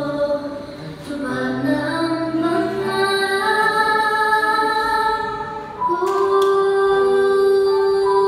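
A song playing: a woman sings slow, sustained notes over a musical accompaniment, with one long held note starting about six seconds in.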